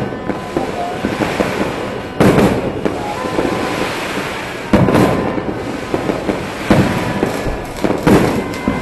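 New Year's fireworks and firecrackers going off all around: a continuous crackle, with four loud bangs spaced a couple of seconds apart, each trailing off in an echo.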